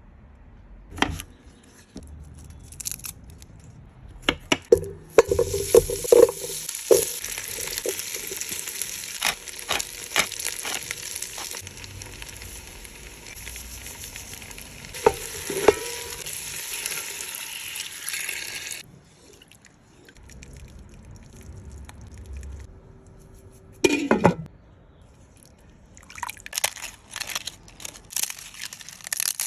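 Food sizzling in a hot pan, with clinks and knocks of a utensil stirring it. The sizzle starts about five seconds in and stops abruptly a little before twenty seconds; a louder knock follows, then a run of lighter clicks.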